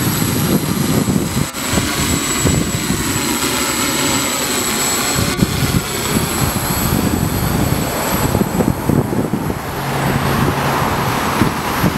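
Small quadcopter's four brushless motors and propellers buzzing in flight close by, the whine wavering slightly in pitch as the motors change speed. Wind rumbles and buffets on the microphone underneath.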